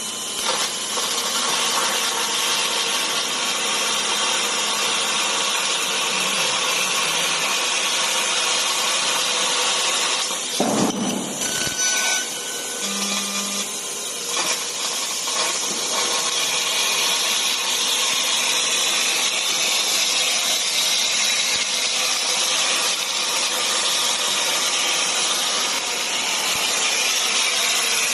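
12 kW fiber laser cutting machine running, a steady hiss of the cutting head and assist gas working through sheet metal, with one brief louder burst about ten seconds in.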